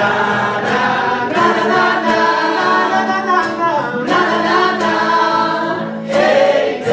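A group of singing waiters singing together in harmony into microphones, holding long notes with a sliding fall in pitch about three and a half seconds in.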